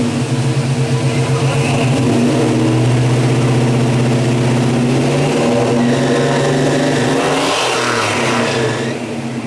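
1970 Dodge Charger's 440 big-block V8 running at idle with a steady, loud note, given a short blip of the throttle near the end and then settling back a little quieter.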